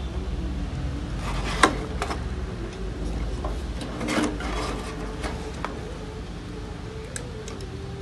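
Clicks and rubbing from wire connectors being pushed onto the terminals of a microwave oven's control circuit board as it is handled, with one sharp click about a second and a half in and a few more around four seconds, over a steady low hum.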